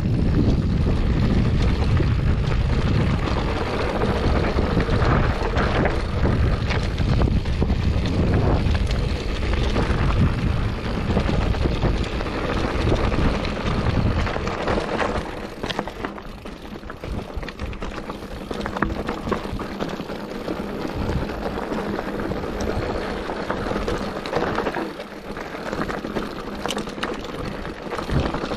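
Wind buffeting the microphone as a mountain bike descends a rocky singletrack, with the tyres crunching over loose stones and the bike clicking and rattling. The low wind rumble eases about halfway through, leaving the gravel crunch and rattles more to the fore.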